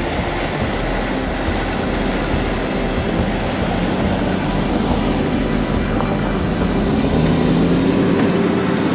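Land Rover Discovery 4x4 engine running as it drives through a shallow river ford, with water splashing and rushing around the wheels.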